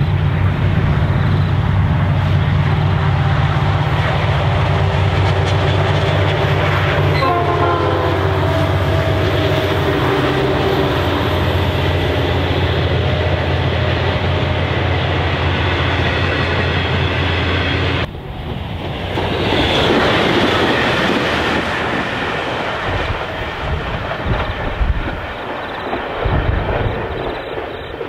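Intermodal freight train passing: the diesel locomotives' engines hum steadily. About eighteen seconds in, the engine sound drops away suddenly, leaving the container wagons rumbling and clattering over the rails, fading toward the end.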